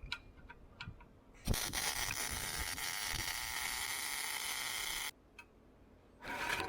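Miller Matic MIG welder, set at 19.5 volts and 225 wire speed, laying a short weld bead on 3 mm plate: a steady hiss that starts suddenly about a second and a half in and stops suddenly after about three and a half seconds, with a few light clicks before and after.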